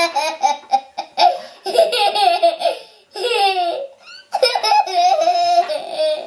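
A toddler laughing in high-pitched bouts, with two short breaks about three and four seconds in.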